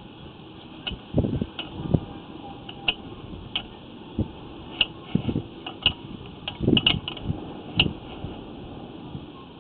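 Sewer inspection camera rig being worked along a sewer line: irregular knocks and clicks from the push cable, reel and camera head, some dull thuds and some sharp ticks, about one every half second to a second, over a steady hiss.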